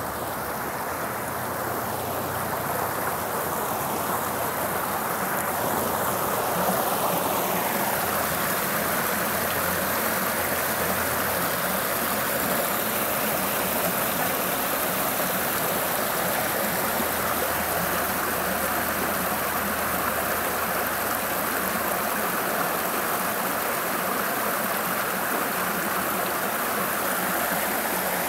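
Rushing water of a forest stream, a steady rush that grows louder over the first six or seven seconds and then holds even.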